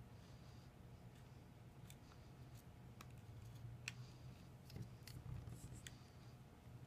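Faint, scattered clicks and light scrapes of an opening tool prying around the edge of an iPhone 6 screen to unclip it from the frame, over a low steady hum.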